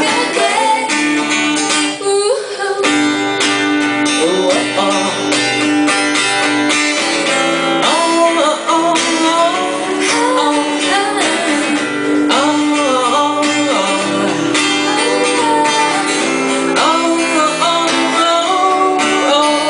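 A woman singing a pop song into a handheld microphone, with guitar accompaniment.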